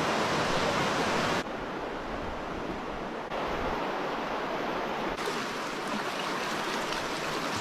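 Steady rushing noise that changes in level and tone abruptly about a second and a half, three and a half and five seconds in.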